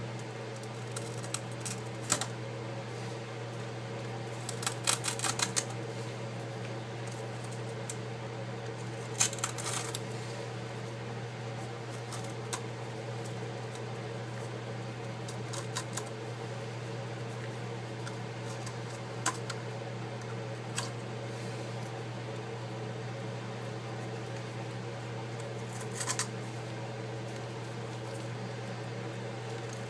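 Cracked iPad digitizer glass being pried and picked off the frame with a tool: scattered sharp clicks and clinks of glass shards, some in quick little clusters, over a steady low hum.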